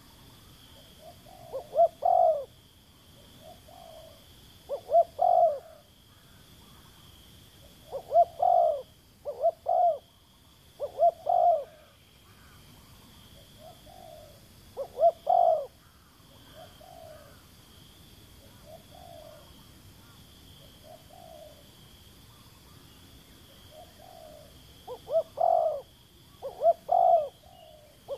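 Dove cooing in short phrases of two or three notes every few seconds, with softer single coos between them and a break of several seconds in the loud phrases near the middle. A faint steady high-pitched whine runs behind.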